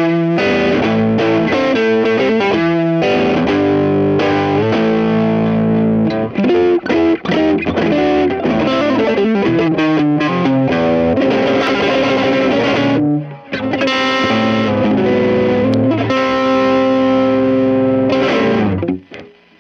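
Electric guitar (a Squier Stratocaster) played through a Kokko overdrive pedal into a Peavey BackStage Plus amp: lightly distorted quick picked notes, then ringing chords. The playing breaks off briefly about two-thirds of the way through, resumes with held chords and dies away near the end.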